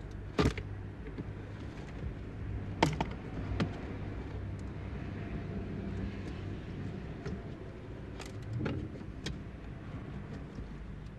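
Scattered sharp clicks and knocks of hand work on a car's dashboard, with plastic trim and wiring being handled, over a steady low hum.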